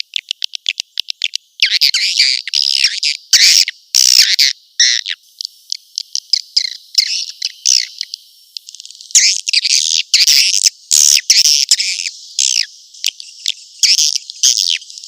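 Swiftlet lure call: a quick run of about eight clicks a second for the first second and a half, then dense, repeated high chirping twitters. It is the kind of swiftlet sound played at a swiftlet house's entry hole to attract the birds and keep them around.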